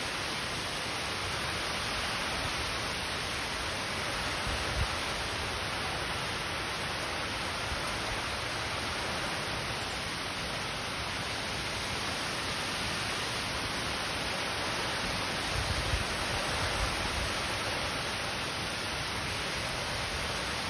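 Heavy rain pouring down steadily on a lawn and a wet road: a dense, even hiss. A few low surges come in about three-quarters of the way through.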